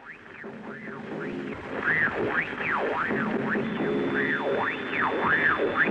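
Shortwave radio static with whistles sweeping up and down about twice a second over hiss and a garbled broadcast, the sound of a radio being tuned in. A thin steady whine joins it a little past halfway.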